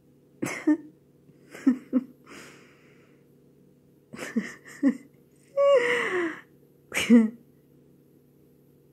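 Short, irregular breathy vocal sounds, about seven in all, with one longer voiced sound about six seconds in whose pitch falls.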